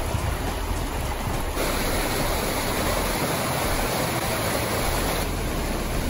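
Steady rush of flowing water from the creek below Chedoke Falls, growing louder about a second and a half in.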